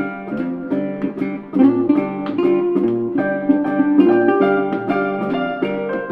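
Background music: plucked string notes over a repeating bass line.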